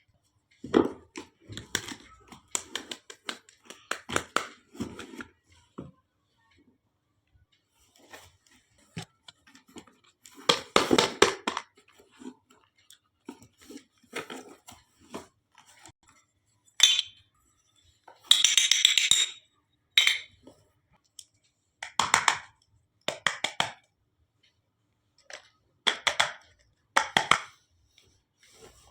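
Tiny steel toy kitchenware being handled and set down: scattered clinks and clatters, with a longer noisy burst about eighteen seconds in.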